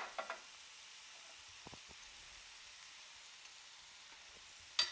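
Sliced carrot, green pepper and onion sizzling in oil in a frying pan, a soft steady hiss, with a short click at the start and another near the end.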